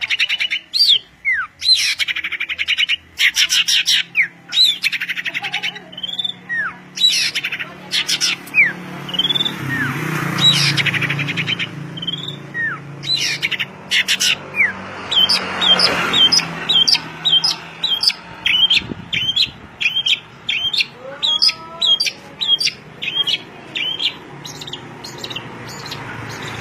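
A caged songbird singing vigorously and without pause: fast rattling trills mixed with short down-slurred whistles, then, from about halfway, a rapid run of repeated sharp chirps.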